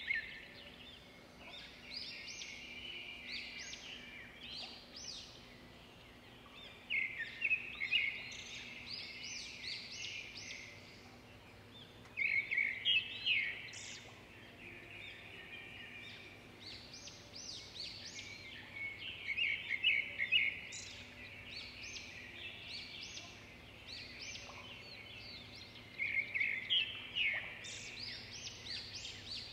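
Bird singing a phrase about every six or seven seconds. Each phrase opens with a quick run of rapid notes and goes on for a few seconds in jumbled higher chirps, over a faint steady hum.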